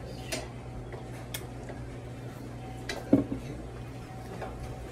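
A drinking glass handled with a few small clicks, then set down with a knock about three seconds in, over a steady low hum.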